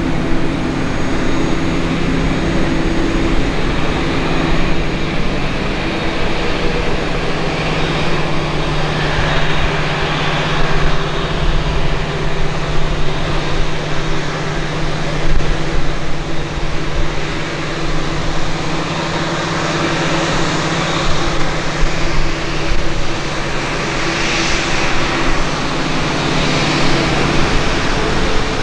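Steady machinery drone on an airport apron: a constant low hum with a noisy rush over it that swells and eases now and then. The 767's own engine is shut down, with its fan standing still.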